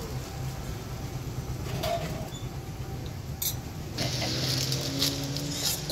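Street-stall background noise with a steady low hum. From about four seconds in, a metal ladle scoops a minced-meat salad out of a steel pot into a plastic bag, with a rustling hiss.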